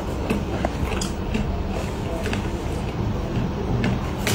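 Scattered light rustles and taps of a cardboard box and a paper packet being handled on a desk, over a steady low room hum.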